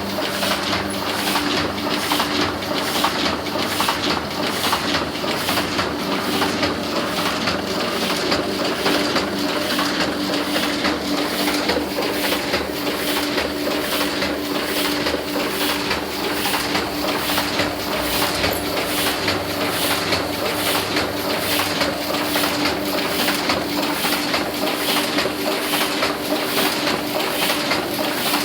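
Heidelberg GTO offset printing press running steadily: a rhythmic mechanical clatter of about two beats a second over a steady hum.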